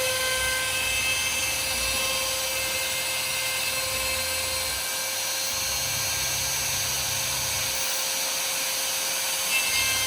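A DIY MPCNC router cutting during its test run. The spindle gives a steady whine over a hiss, while the NEMA 17 stepper motors drive the axes with low hums that change pitch with each move.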